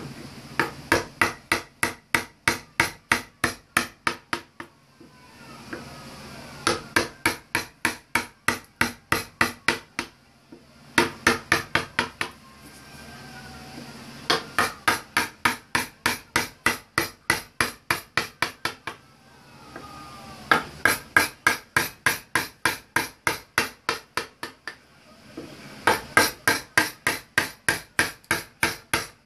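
Wooden mallet striking a carving chisel to cut a moulding in wood. The strikes come in quick runs of about four or five a second, with pauses of a second or two between runs.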